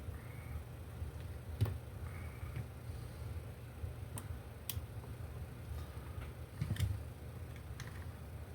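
A few sharp, separate clicks over a steady low hum: the small switch on a fluorescent hang light being flipped back and forth. The switch is faulty and passes power in either position.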